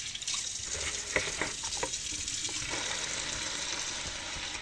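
Cold tap water running from a faucet into a bowl of hot water, a steady stream with a few small clicks about a second in.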